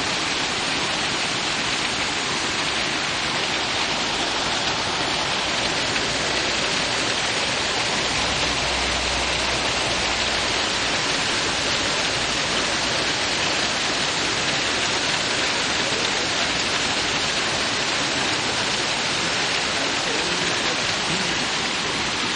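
Heavy rain mixed with hail coming down, a steady dense hiss that does not let up.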